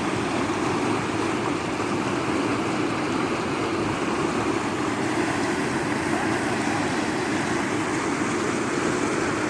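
Rain-swollen river in spate, its water rushing steadily.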